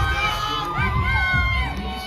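Fight-night crowd cheering and shouting, many voices overlapping, over a low thumping beat.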